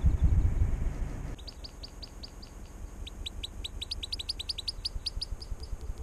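Low rumbling noise for about the first second, then small garden birds chirping: fast runs of short, sharp downward chirps, about four a second, with a second overlapping run joining in about halfway.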